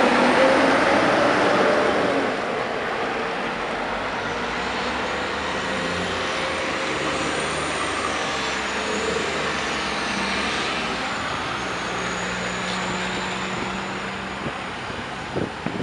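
Peterbilt 359 diesel semi-truck with a loaded flatbed trailer passing close by, loudest in the first two seconds, then fading into steady city street traffic, with a few short knocks near the end.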